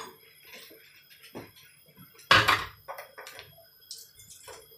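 A dish knocked down onto a hard kitchen surface: one loud clatter a little over two seconds in, with a few faint handling knocks around it.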